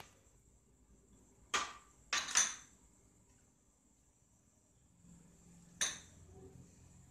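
Small glass bowls knocking and clinking against plates as they are set down and picked up: one knock, then two close together about two seconds in, and another near the end.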